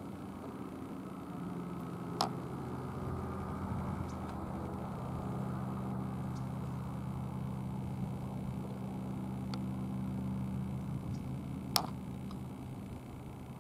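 Distant Boeing 747-400 freighter's four jet engines giving a steady, low rumble that swells slightly midway. Two sharp clicks cut through it, about two seconds in and near the end.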